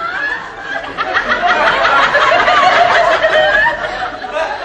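Studio audience laughing, many voices together, swelling about a second in and dying away near the end.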